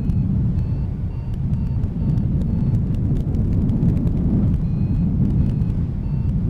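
Loud, steady rush of airflow over a hang glider's camera microphone in flight. Faint short electronic beeps repeat about twice a second: a variometer signalling a gentle climb.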